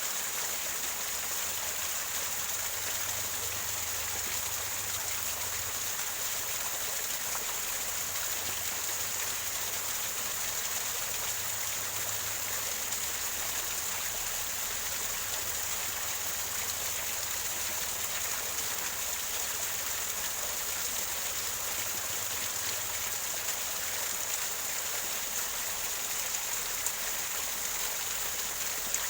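Small waterfall: water splashing and gurgling over rocks in a steady, unbroken hiss.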